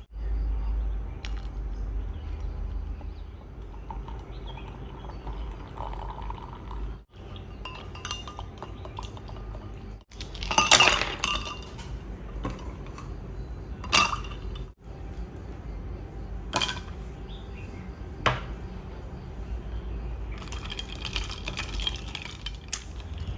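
Glassware and dishes clinking a few times, the loudest clatter about eleven seconds in, over a steady low rumble.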